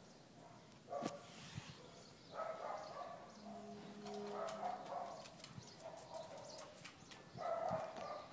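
A dog vocalising in several stretches of a second or two each, with short pitched calls.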